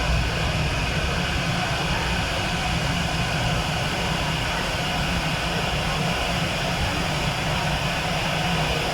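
Jet aircraft engines running, a steady rush of noise with a deep rumble underneath that neither rises nor falls.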